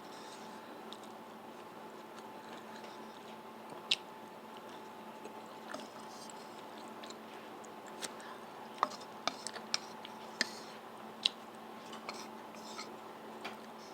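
A person eating drunken noodles: quiet chewing, with sharp clicks scattered through, most of them in the second half, over a steady faint hum.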